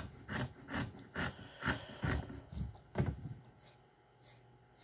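A man laughing quietly in short breathy bursts, about two or three a second, dying away about three and a half seconds in.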